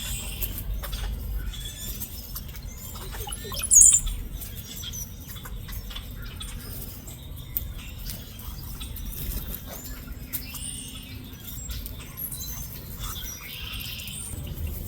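Small birds chirping and fluttering amid many small clicks and scratches over a low background rumble, with one brief, sharp, high chirp about four seconds in.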